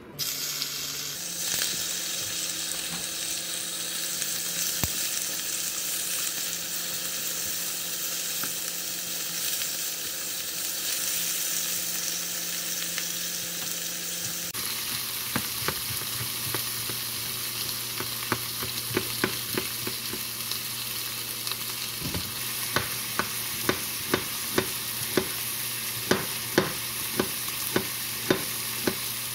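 Slices of pork belly sizzling steadily in a frying pan. From about halfway, sharp knocks of a knife cutting a vegetable on a cutting board are heard, coming more often near the end.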